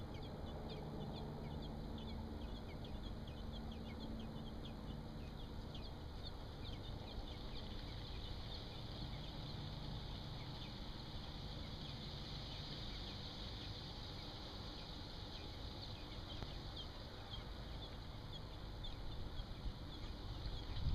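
Nestling American robins cheeping: many short, high, falling chirps in quick succession, thickest around the middle, over a faint low steady hum.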